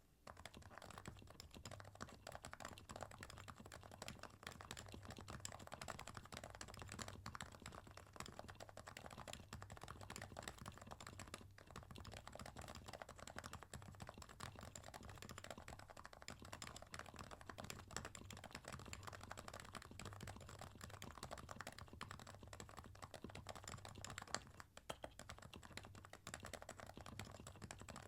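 Continuous fast typing on a custom Topre keyboard (Realforce R2 PFU board with 45 g domes, lubed sliders and DCS keycaps), a steady stream of soft keystrokes at a faint level, with a brief pause near the end.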